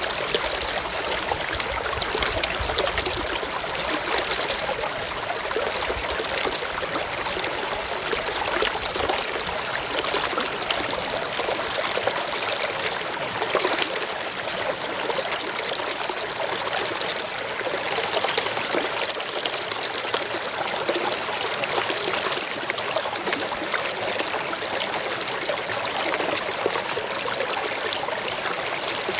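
Shallow stream water trickling and babbling steadily over stones.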